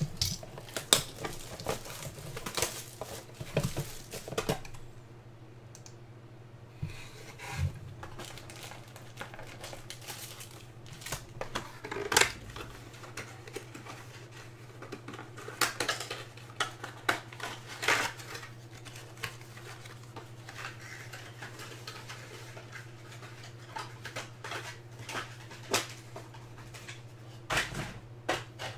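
An Elite Extra Edition baseball card box being opened and its foil packs handled: scattered clicks, rustles and crinkles of cardboard and foil wrappers over a steady low hum.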